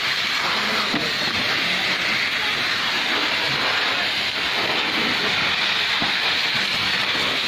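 Steady loud hiss and rush of water jetting from a fire hose nozzle.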